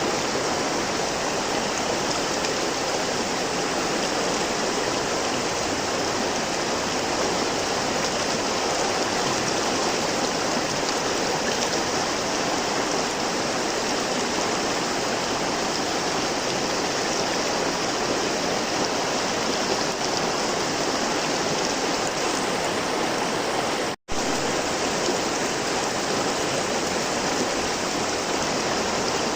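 River water flowing in a steady, even rush. It drops out for a split second about 24 seconds in.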